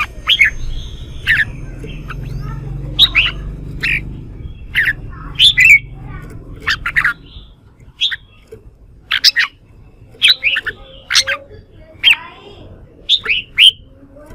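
Red-whiskered bulbuls giving loud, sharp, repeated short calls in quick bursts of one to three notes, roughly one to two bursts a second. The harsh, excited song of birds driven into contest calling. A low rumble runs under the first half.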